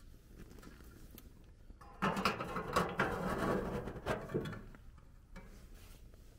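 The round polished-metal door of a box wood stove being swung shut and latched by hand: metal scraping, clanking and clicking for about two seconds, starting about two seconds in.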